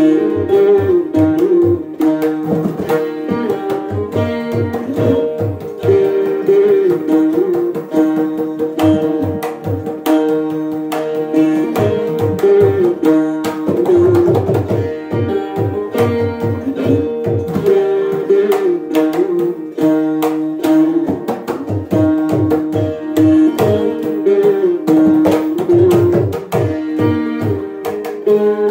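Saraswati veenas and a mridangam playing Carnatic music: the veenas carry the melody together with sliding, bending notes over a steady pattern of mridangam strokes.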